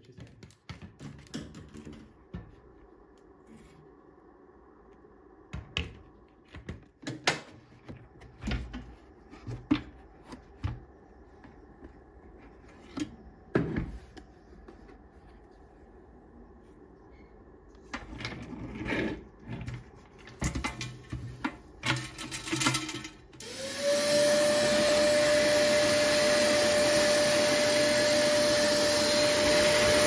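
Scattered clicks and knocks of handling, then a Parkside PWD 12 B1 wet/dry vacuum is switched on a little over twenty seconds in: its motor spins up quickly and runs steadily with a high whine over the rush of air.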